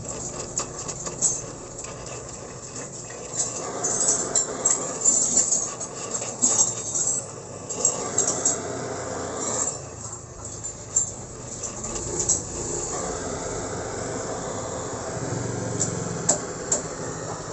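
Oxy-acetylene torch flame hissing steadily as it melts aluminium filler into a worn, oversized wheel-hub bearing seat, with many scattered sharp clicks and crackles.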